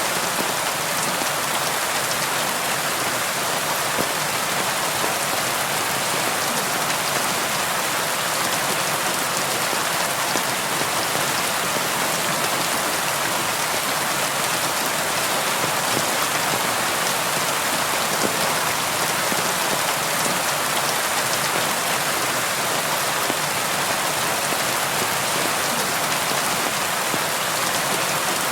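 Steady rain on a window: an even hiss of falling rain with faint, scattered drop ticks.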